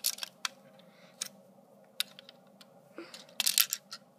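Hard plastic LEGO pieces clicking and knocking under handling fingers: a few sharp clicks at the start, single clicks spaced out after, and a quick rattle of clicks about three and a half seconds in.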